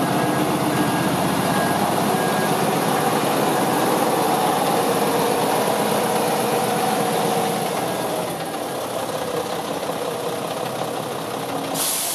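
Mack CXN613 tractor's diesel engine idling steadily. A reversing alarm beeps faintly in the first few seconds, and a short burst of air hiss comes at the very end.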